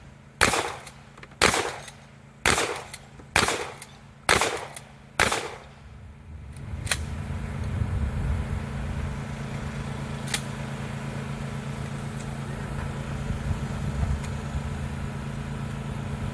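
Six gunshots about a second apart, then the shooting stops and a steady low rumble with a faint hum carries on.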